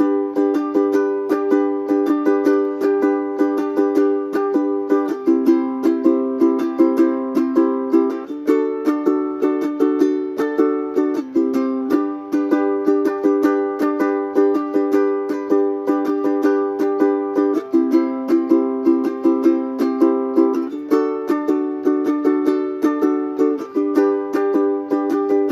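Kamaka HF-2 concert ukulele strumming chords in a steady rhythm with no singing, the chord changing every few seconds.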